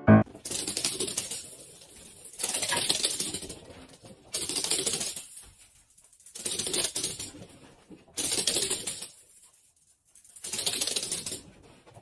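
A puppy's claws scrabbling on a wooden floor in quick clattering bursts, each about a second long, repeating roughly every two seconds.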